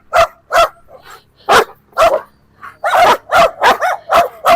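Search-and-rescue dog barking repeatedly: its active indication that it has found the hidden person. The barks come singly at first, then quicken to several a second from about three seconds in.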